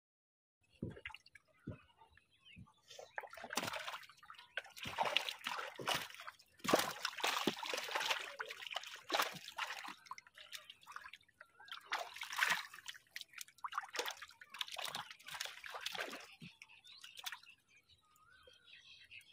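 Water splashing and dripping as a fishing net with fish in it is hauled out of the water and over the side of a wooden boat. It starts with a few knocks, then runs as irregular splashes from about three seconds in and thins out near the end.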